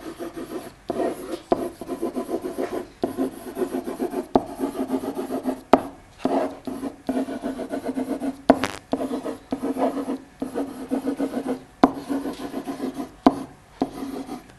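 A stylus writing on an interactive whiteboard: a run of short rubbing, squeaky pen strokes, each with a pitched tone, broken by a few sharp taps of the pen tip on the board.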